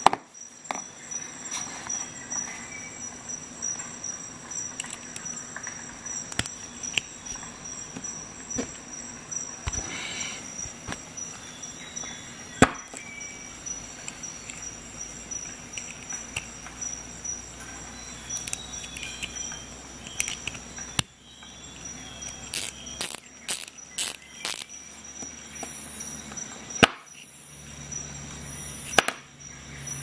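Small steel tool parts being handled and fitted together: scattered sharp metal clicks and clinks of hex bits, an extension bar and a small ratchet, with a cluster of quick clicks about three quarters of the way in. A steady high-pitched whine runs underneath.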